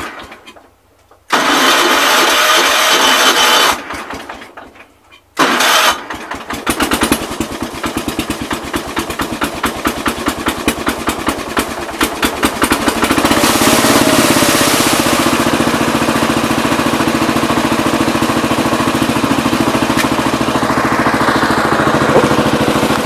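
Gravely 432 walk-behind tractor's engine cold-started in freezing weather. It catches about five seconds in and runs unevenly with rapid firing pulses, then settles into a steadier, fuller run about halfway through. Before it catches there are two short loud stretches of noise.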